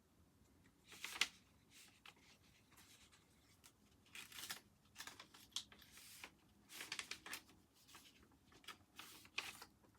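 Faint paper rustling and scraping as a letter is worked out of its envelope, in short irregular strokes that come thicker in the second half, with one sharper click about a second in.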